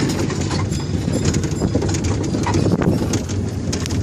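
Miniature ride-on train under way, its open carriage clattering and rattling along the track with many quick knocks.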